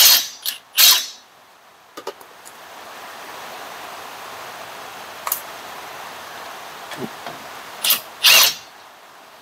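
Ryobi cordless impact wrench zipping at 5/8-inch nuts in short trigger bursts: three quick bursts at the start and two more near the end. Between them come a few light clicks over a steady background hiss.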